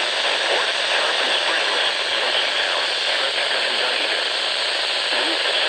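Loud, steady hiss of static from a radio receiver tuned to a weather broadcast with a weak signal.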